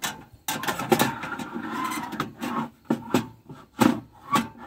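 A Coleman portable butane stove being slid into a wooden cubby shelf: it scrapes across the wood for a second or two, then knocks several times as it is pushed into place.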